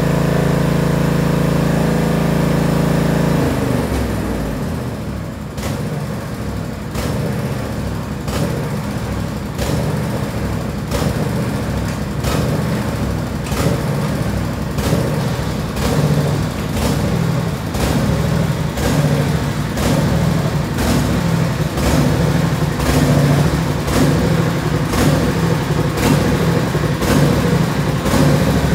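Tractor engine running at a steady speed. About three and a half seconds in, the steady note breaks off and the engine runs on unevenly, with a short sharp tick about once a second.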